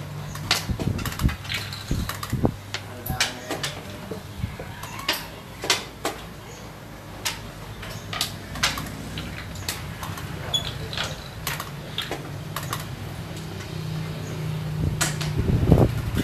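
Round xiangqi pieces clacking on a wooden board as moves are made, with scattered sharp clicks throughout and the loudest knock near the end as a piece is captured, over a steady low hum.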